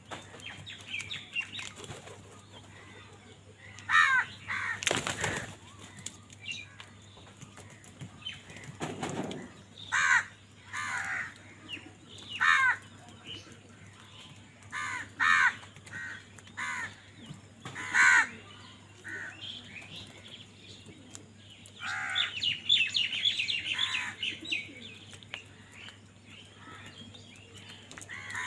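Crows cawing repeatedly: short harsh calls in bunches every few seconds, with a busier run of calls near the end. A brief noisy whoosh comes about five seconds in.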